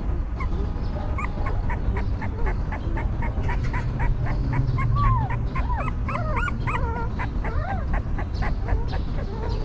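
Newborn puppies whimpering and squeaking, many short high calls bending up and down and overlapping, busiest in the middle, over a fast, even clicking.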